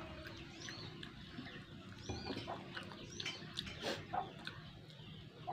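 Faint bird calls, short chirps and chicken clucks, with a few soft clicks from eating by hand.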